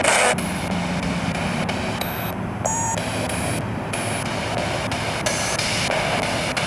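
Spirit box sweeping through radio stations: a continuous static hiss that chops and changes every fraction of a second, with brief snatches of tone between the jumps.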